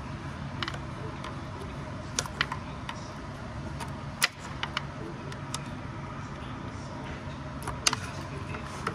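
Metal hand tools working on engine fasteners: scattered sharp clinks and clicks of a socket wrench on bolts, at irregular intervals over a steady low hum.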